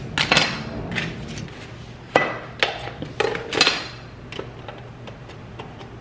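A series of sharp knocks and clacks, most of them in the first four seconds: a knife cutting an onion on a cutting board, and a plastic push-down vegetable chopper being opened and loaded with onion pieces.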